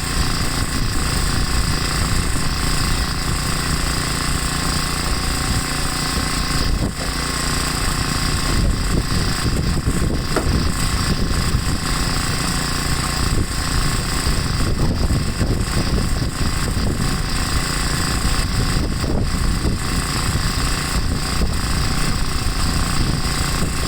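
An old snowblower's small engine running steadily under load while clearing deep snow.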